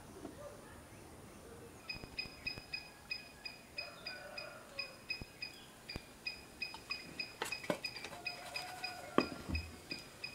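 A glass oil bottle and an iron frying pan clink and knock together a few times near the end as coconut oil is poured over a roti. Under this, from about two seconds in, comes an even run of short high chirps, three or four a second.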